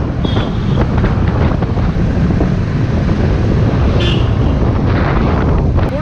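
Motorcycle running steadily on the road, with wind buffeting the on-bike microphone.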